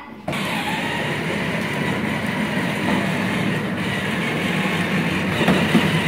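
Battery-powered ride-on toy car, a blue Chevy Bel Air replica, driving along: a steady whir from its electric motor and gearbox, with its hard plastic wheels rolling on a concrete floor. It starts abruptly a moment in.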